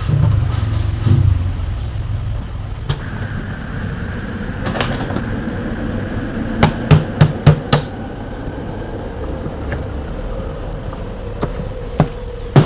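Sharp knocks and clicks of hand tools and metal or plastic fan parts being handled and struck during a table fan repair, including a quick run of about five knocks partway through, over a steady low rumble.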